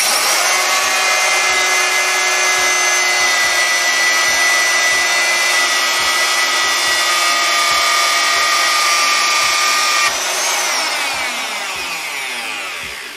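Electric router starting up and running at full speed with a steady high whine, its bit cutting a groove along the crack in a Corian countertop. About ten seconds in it is switched off and spins down, the whine falling in pitch as it fades.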